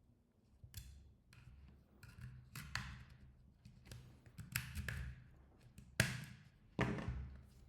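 Snap-on plastic back cover of a Samsung Galaxy Note 4 being pried off by hand, its clips letting go in a series of sharp clicks and taps, the two loudest near the end.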